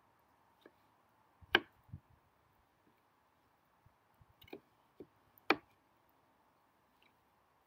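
Kitchen knife chopping marrow on a wooden chopping board: a handful of sharp knocks at uneven intervals, the two loudest about a second and a half in and near the end.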